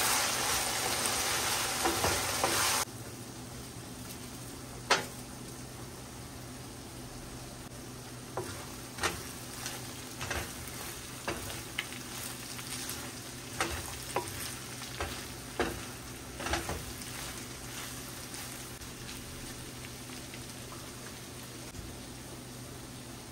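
Minced beef sizzling loudly in a pan as it is stirred with a wooden spoon. About three seconds in, this cuts to a quieter sizzle with scattered knocks and scrapes of the wooden spoon against the pan as the beef, pepper and onion mix is stirred.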